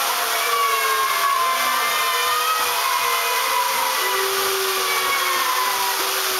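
A congregation's Purim noise to blot out Haman's name: a dense, steady din of many groggers (ratchet noisemakers) whirring, with wavering, gliding tones of voices and whistles over it.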